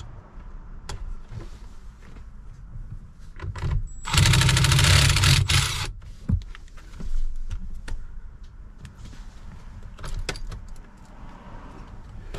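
Cordless impact driver run for about two seconds, about four seconds in, rattling rapidly as it loosens a car battery's terminal nut. Light clicks and knocks of the tool and terminal hardware come before and after.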